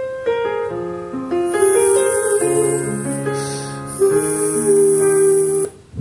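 Recorded music played back through a Tandberg 3002 preamplifier and 3003 power amplifier: slow, held chords that stop abruptly shortly before the end as the track is skipped.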